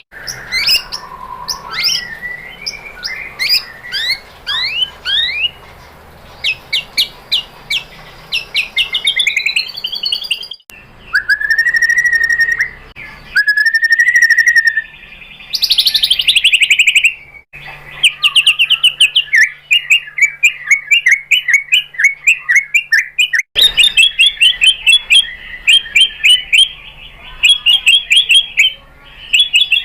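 White-rumped shama (murai batu) singing: fast runs of repeated sharp notes, rising slurred whistles and chattering phrases. The song is spliced from several recordings and changes abruptly a few times.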